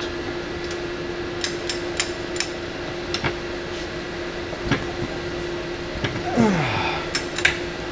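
Steel socket, extension and ratchet clinking and knocking in a scatter of sharp metal clicks as a 1.25-inch 6-point socket is re-fitted on a long extension over a filter housing held in a bench vise. A steady background hum runs throughout, and a short sound falling in pitch comes after about six seconds.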